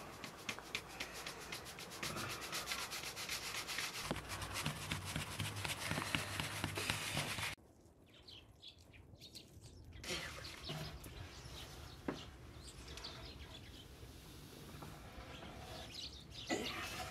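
Hands working a round of dough in a metal basin: a steady rubbing scrape with fast small clicks. It cuts off suddenly, leaving a few short bird chirps over near quiet. Softer handling noise then returns, with a knock near the end as a large aluminium basin is set down over the dough.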